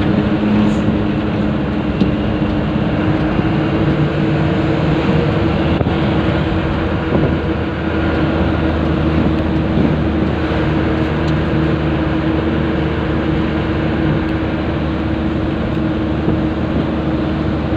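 Truck's diesel engine running steadily while hauling a 10-ton load, heard from inside the cab as a continuous low drone.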